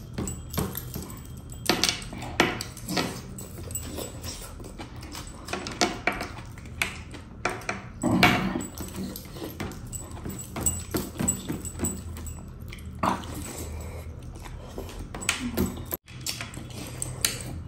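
Mouth sounds of a man eating mutton rice and curry with his fingers: chewing and lip-smacking, in irregular clicks and smacks with no steady rhythm.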